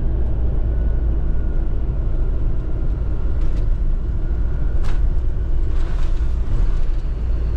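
Road and engine noise of a vehicle towing a caravan on a sealed road: a steady low rumble with tyre noise, and a couple of faint ticks about three and a half and five seconds in.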